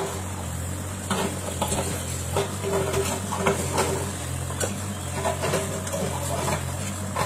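Bobcat E37 compact excavator's diesel engine running steadily, with frequent light clicks and clinks on top of the hum.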